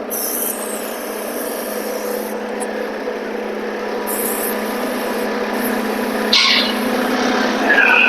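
Forklift engine idling with a steady hum, while an aerosol can of white lithium grease hisses in three short sprays: at the start, about four seconds in and again past six seconds.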